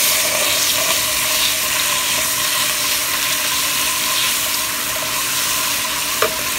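Oil and spices sizzling steadily in a non-stick wok while a ladle stirs a spoonful of curd into them. Two light knocks, one right at the start and one near the end.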